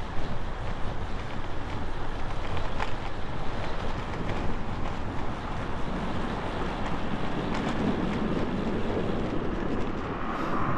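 Wind buffeting the microphone of a moving road bike, a steady rumble with a few faint clicks.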